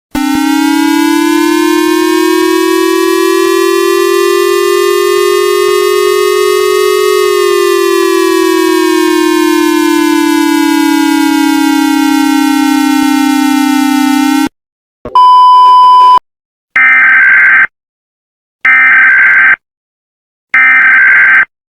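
A synthetic siren wail: a loud buzzy tone that slowly rises in pitch for about seven seconds, falls back for another seven, then cuts off. A short steady beep follows, then three one-second bursts of Emergency Alert System header data tones, a harsh warbling screech, about two seconds apart.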